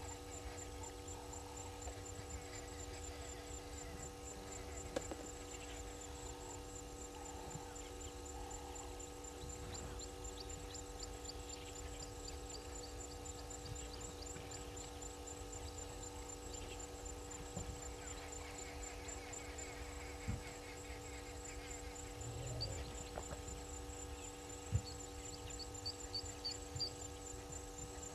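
Steady electrical mains hum in the audio feed over a low rumble, with a fast, faint high ticking, a few faint high chirps and a few sharp clicks, the loudest near the end.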